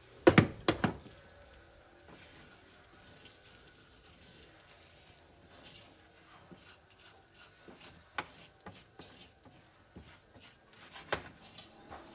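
A jar of sesame seeds shaken and knocked over a small stainless-steel skillet, a burst of loud rattles and knocks in the first second. Then a wooden spoon stirs the seeds and garlic in hot oil in the pan, with faint sizzling and occasional clicks and knocks of the spoon against the pan.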